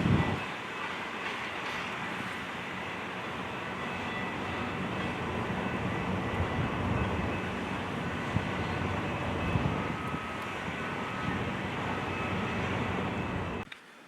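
A train going by on the rails: a steady rumble and rail noise with a few faint, high, steady ringing tones. It starts with a heavy low thump and cuts off abruptly near the end.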